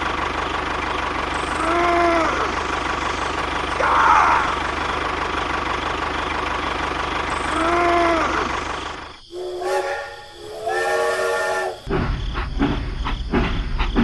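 Train sound effects: a steady steam hiss over a low rumble, with two short whistle toots that rise and fall, about 2 and 8 seconds in. After a sudden break come two long multi-tone horn blasts around 10 seconds in, and then a busier thudding sound near the end.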